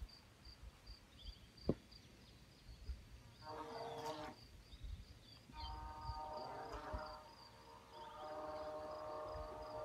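Faint whine of a small electric RC boat's motor, a Vector 30, coming in three bursts about three and a half, five and a half and eight seconds in as it tows a floating box. A cricket chirps steadily throughout, a high pulse a few times a second.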